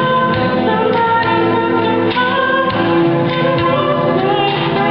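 Middle school show choir singing with music, a lead voice amplified through a microphone over the group.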